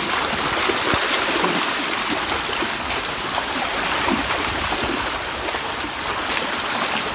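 A dense shoal of large pond fish (rohu, catla and the like) thrashing and splashing at the surface in a feeding frenzy, a steady churning rush of water.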